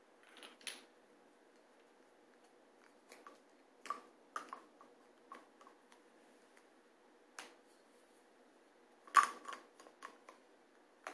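Glass perfume bottles handled in a wicker basket: scattered light clicks and taps, with the loudest cluster of knocks about nine seconds in.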